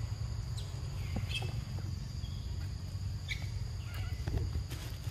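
Steady high drone of forest insects, with a low rumble underneath and a few short chirps and clicks scattered through.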